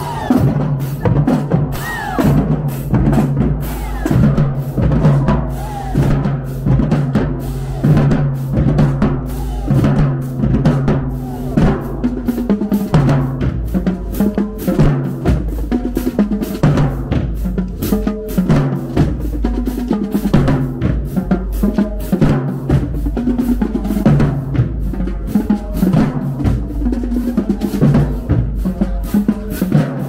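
Marching band drumline playing a street cadence: snare drums, tenor drums and tuned bass drums beating a dense, driving rhythm of rapid strokes over steady low bass-drum tones.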